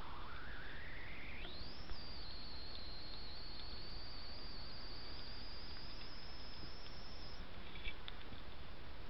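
Steady hiss of a trail camera's recording with a thin high electronic whine that rises in pitch over the first two seconds, then holds steady and stops about seven seconds in. Two faint knocks as a European badger noses at a feeding dish, the second near the end.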